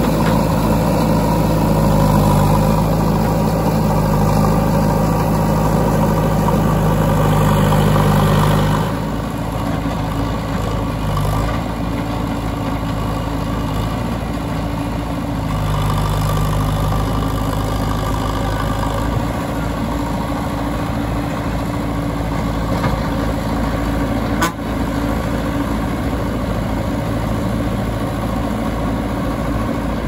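Diesel engine of a JCB 3DX backhoe loader running steadily close by. About nine seconds in it drops to a quieter, steady idle, with a single sharp click late on.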